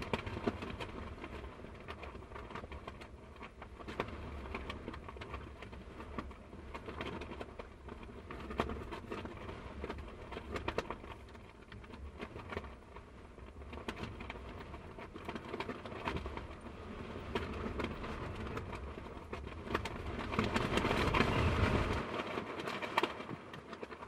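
Strong wind gusting against a cargo van, heard from inside, an uneven rumble with scattered small knocks and rattles. A stronger gust swells up near the end, then the low rumble drops off.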